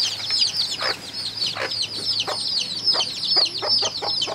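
Chicks peeping without a break, many short high-pitched peeps a second, each sliding down in pitch. Lower calls come in under them every half second or so: the mother hen clucking.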